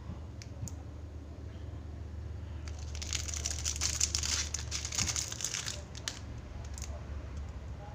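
Thin clear plastic wrapper crinkling in the hands, a dense crackle with many small clicks starting about three seconds in and lasting about three seconds. Lighter scattered clicks come before and after, over a steady low hum.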